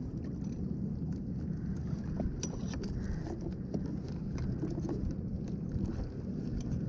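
Wind rumbling on the microphone and water slapping against a fishing kayak's hull, with scattered small clicks and taps from hands handling fishing tackle and a plastic bait tub.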